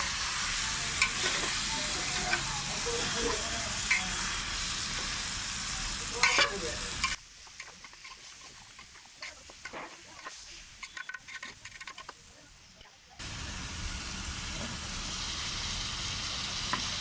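Chicken sizzling in hot oil and masala in a large cooking pot while it is stirred, with the ladle clicking and scraping against the pot. About seven seconds in, the sizzling drops away abruptly for several seconds, leaving only a few knocks, and it returns just as abruptly near the end.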